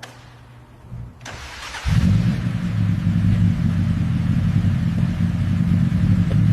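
Car engine starting about two seconds in, then running steadily, loud and low-pitched.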